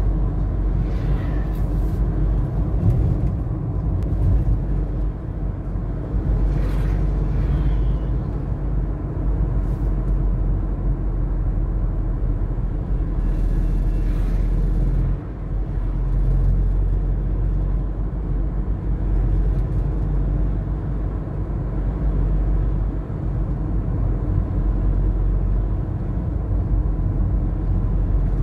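Steady low rumble of a moving car heard from inside its cabin: engine and road noise.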